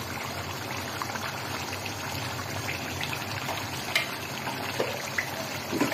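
Chicken curry gravy bubbling in a karahi over the flame: a steady hiss of simmering with a few faint clicks and pops.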